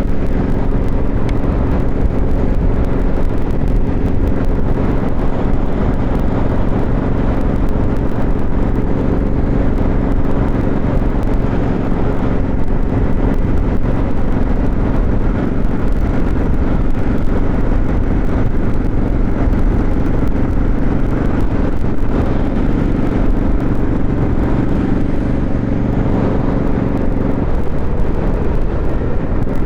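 Motorcycle engine running steadily at cruising speed, heard from the rider's helmet microphone with road and wind rumble; the engine note steps lower near the end.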